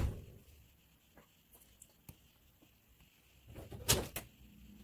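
A dull thump at the start, a few faint ticks, then a brief flurry of knocks and rustling about four seconds in: handling noise at a table.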